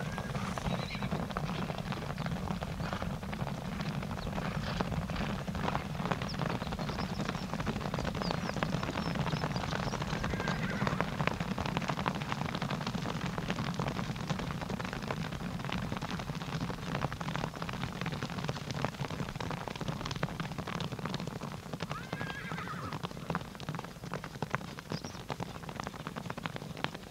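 A herd of horses running, a dense continuous patter of hoofbeats, with a whinny about ten seconds in and another a little past twenty seconds.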